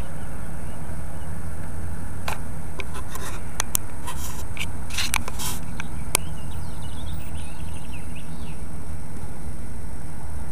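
Steady low rumble of a car heard from inside its cabin, with a handful of sharp clicks and rattles through the middle few seconds and faint high chirps after them.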